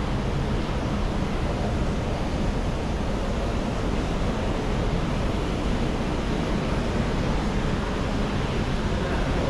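Steady rushing background noise with a low rumble and no distinct events, like air handling or wind noise on a moving microphone.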